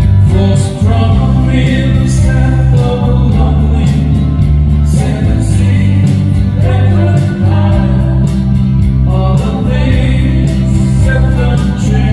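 Music: a song with singing over instrumental backing and a strong bass line.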